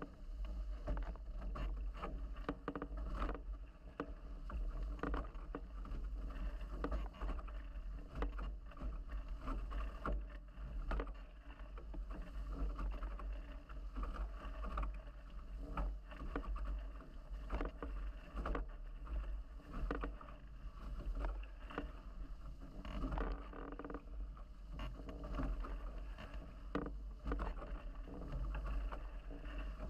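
Nacra 17 catamaran hulls running fast through choppy water: a steady rush of water and spray, with irregular slaps of chop against the hulls over a constant low rumble.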